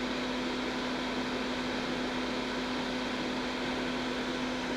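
A small motor running steadily: a constant hum with air noise.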